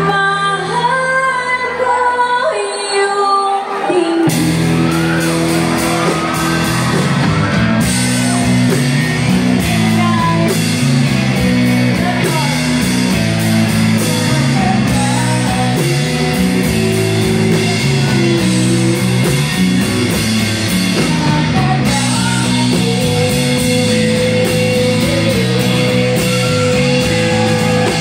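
Live pop-rock band playing, with a female lead singer over electric guitars, bass and drums. The first few seconds are sparse, with the voice over light accompaniment, and the full band with drums comes in about four seconds in.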